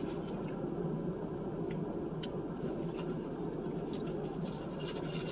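A person chewing food close to the microphone, with a few soft scattered clicks over a steady low background noise.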